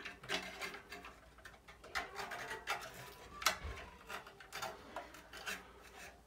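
Irregular clicks, taps and short scrapes of a sheet-metal exhaust fan housing being handled and worked loose, with one sharper knock about three and a half seconds in.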